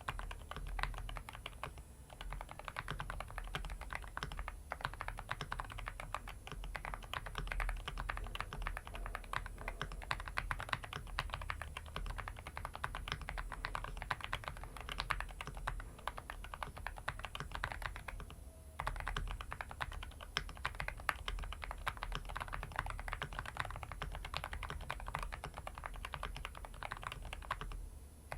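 Typing test on a mechanical keyboard with stock, factory-lubed Akko Rosewood linear switches (nylon stem, PA12 top and PA6 bottom housings): fast, continuous keystrokes with a deep sound, with a short pause past the middle. The reviewer notes a slight ping and scratchiness, which he puts down to uneven factory lubing.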